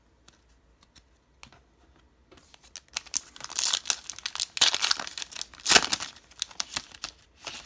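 Wrapper of a 2017 Donruss Optic football card pack crinkling and tearing as it is ripped open by hand. A few light clicks of handled cards come first, then about three seconds in a dense crackle of the wrapper, loudest about two-thirds of the way through.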